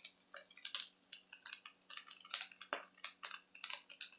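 Faint, irregular light clicks and ticks, several a second.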